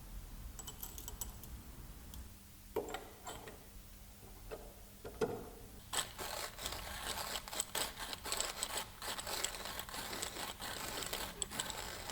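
Restored antique hand coffee grinder in use: a few knocks and rattles, then from about six seconds in a dense, steady crunching crackle as the crank is turned and the burrs grind coffee beans.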